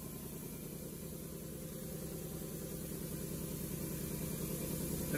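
Steady low mechanical hum of a Fanuc Robodrill CNC machining centre running with the spindle not cutting, with a fast fine pulse, growing a little louder toward the end.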